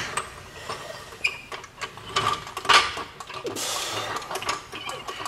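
Irregular metal clicks, knocks and scrapes as the differential and its stub shaft are worked into place from under the car, with a short squeak about a second in.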